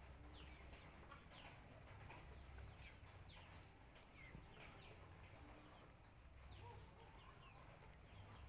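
Faint outdoor ambience: many short, falling bird chirps scattered throughout, over a low rumble.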